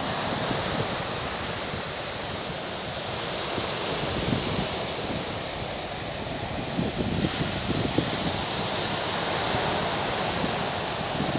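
Ocean surf washing up the beach, with wind buffeting the microphone in irregular gusts.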